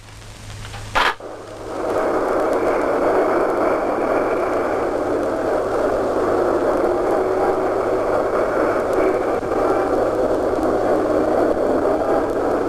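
A short click about a second in, then a steady wash of city street and traffic noise that holds level for the rest of the time.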